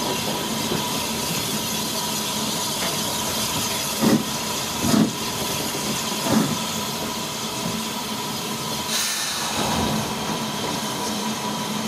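Peckett 0-6-0 saddle tank steam locomotive running along the line: a steady hiss of steam over the running noise, with three short heavy knocks about four, five and six seconds in.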